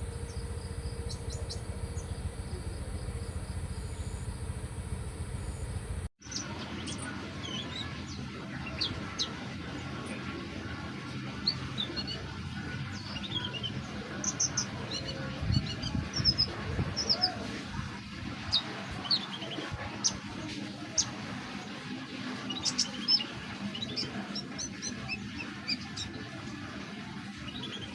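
A steady high insect trill, like crickets, that stops abruptly about six seconds in, followed by small birds chirping with many short, scattered high calls.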